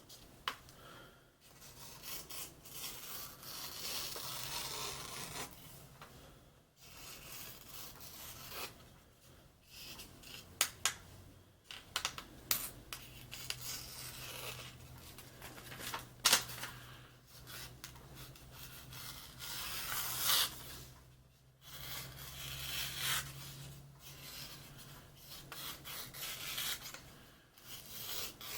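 Knife blade rasping against an abrasive during sharpening (Lansky guided hone stones or sandpaper): a run of scraping strokes with short pauses between them.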